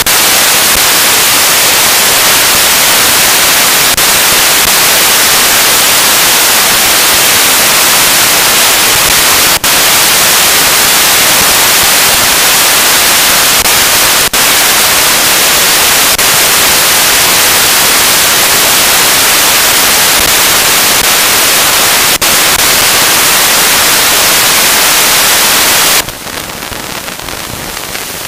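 Loud, steady hiss of rushing wind and trail noise on the camera microphone as a mountain bike rolls fast down a dirt singletrack, with three brief dropouts; it falls off sharply about two seconds before the end.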